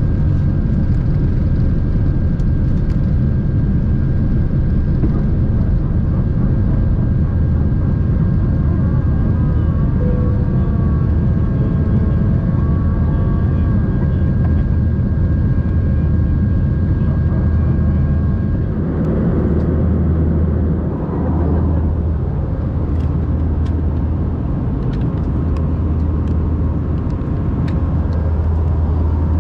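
Airbus A320-200 cabin noise during takeoff and initial climb: a loud, steady deep rumble of the jet engines and airflow, with a thin steady high tone that stops about two-thirds of the way in.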